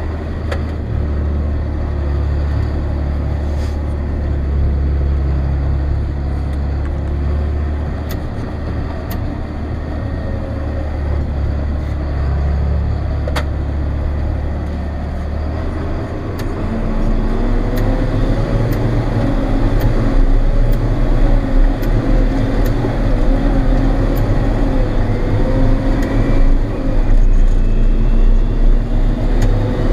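John Deere 7800 tractor's six-cylinder turbo diesel engine running, heard from inside the cab. About halfway through, the engine note shifts lower and gets louder, and a steady whine comes in on top of it.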